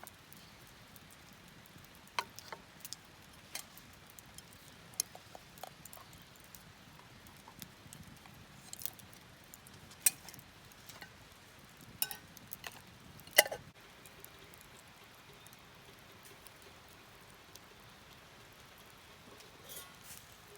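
Irregular sharp clicks and light taps, a dozen or so scattered unevenly through the middle stretch, over a faint steady background.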